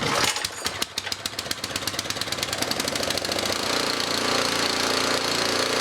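Cub Cadet 2X 524 SWE two-stage snowblower's single-cylinder engine catching on a cold start with the choke set and running up. The firing is uneven at first and settles into a steady run about three and a half seconds in.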